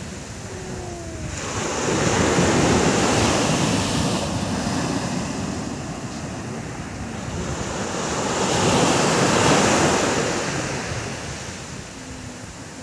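Sea surf breaking on a sandy beach: waves wash in twice, the first swelling about two seconds in and the second peaking near ten seconds.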